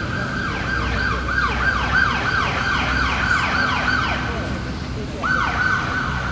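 Emergency vehicle siren in a fast yelp, its pitch sweeping down over and over, about four or five times a second. The sweeps stop about five seconds in, then one more sweep and a held tone near the end, over a low traffic rumble.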